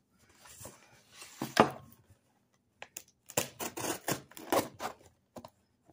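Cardboard box being handled and opened by hand: scraping and rubbing of the cardboard flaps, with one sharp knock about a second and a half in and a quick run of rustles and scrapes near the middle and end.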